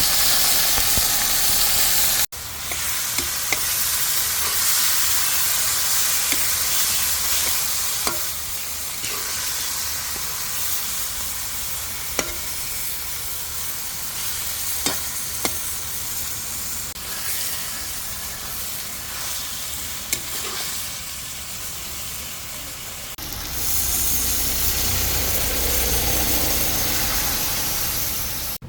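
Food sizzling in oil in a frying pan while being stirred, with occasional sharp clicks of a utensil against the pan. The sound jumps in level at cuts about two seconds in and again near the end.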